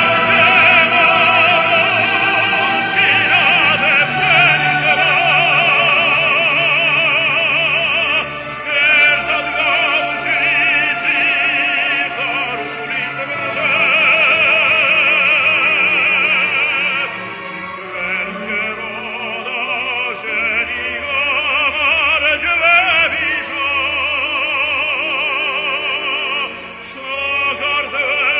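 A man singing in full operatic style with wide vibrato, held notes and sweeping phrases, over instrumental accompaniment.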